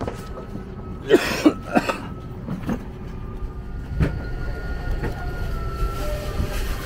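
Steady low hum of an airliner cabin on the ground during boarding. About a second in, a person coughs three times in quick succession, and a short thump follows around four seconds in.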